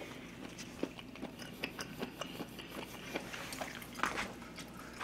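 Close-miked chewing and biting of gochujang-grilled pork and mushrooms, a run of small wet clicks and crunches, with a few light clicks of a plastic fork against a plastic takeout tray.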